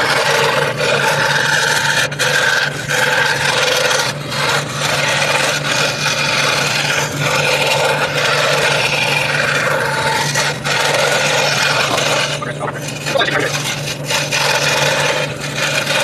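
Scroll saw running, its blade cutting through wood: a steady hum under a dense rasping noise that swells and dips as the cut goes on.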